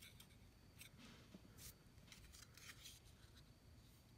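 Faint, short scrapes of a steel knife blade drawn across forearm hair, several quick strokes in a row: a shave test of the freshly sharpened edge.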